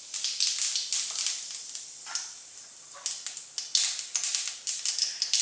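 Cumin seeds sizzling in hot oil in a pan, with a steady hiss and irregular sharp crackles and pops as the seeds splutter.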